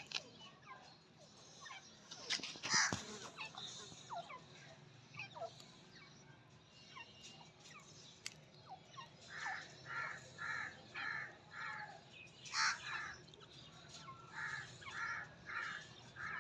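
Female gray francolin calling: a run of about five short, evenly spaced notes at roughly three a second, one louder note, then four more near the end.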